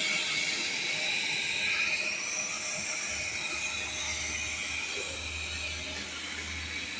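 Viomi V3 robot vacuum running, a steady whirring hiss from its suction fan and brushes. A low hum joins about three seconds in.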